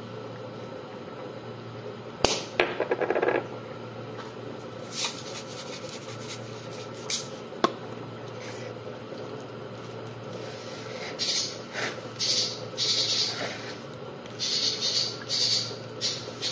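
Hand-held spice shaker rattling as seasoning is shaken over a chicken breast, a quick rattle about two seconds in, with a few clicks against the plate. Near the end come repeated rustling bursts as the foil-topped chicken is handled, over a steady background hum.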